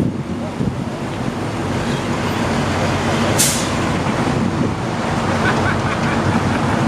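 Car engine idling steadily, with a short sharp hiss about three and a half seconds in.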